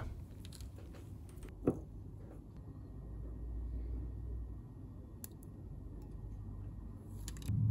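Quiet handling of solder wire held across the terminals of a high-drain 26650 battery cell, with a sharp click about a second and a half in and a few faint ticks about five seconds in. The dead short through the wire melts it through almost instantly.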